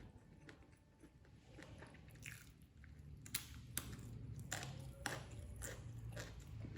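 A person chewing crunchy food with the mouth close to the microphone. Quiet at first, then a run of sharp crunches from about two seconds in.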